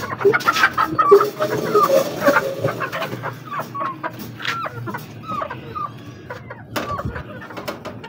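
Chickens clucking in short, repeated calls, with a few sharp knocks near the end.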